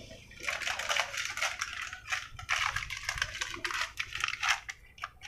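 Irregular crunching and rustling from walking on a dry dirt lane with a handheld camera: footsteps and handling noise on the microphone, in uneven bursts with a low rumble underneath.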